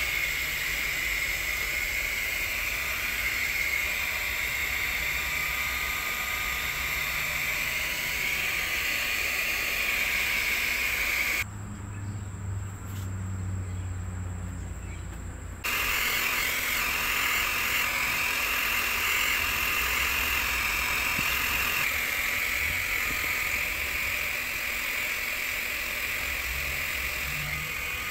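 Hot-air plastic welding gun running, a steady blowing hiss. It drops out abruptly for about four seconds near the middle, leaving only a low hum, then comes back.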